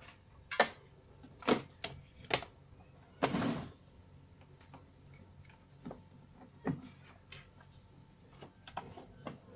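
Irregular clicks and knocks from RCA audio-video cables being handled and their plugs pushed into the AV input jacks on the back of a CRT television. The loudest clicks come in the first few seconds, with a short scuffing sound about three seconds in and lighter clicks after that.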